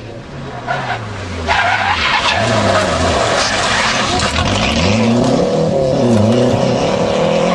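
Rally car going past hard, its engine rising and falling in pitch several times through gear changes and lifts. A loud rush of tyre noise sets in about a second and a half in.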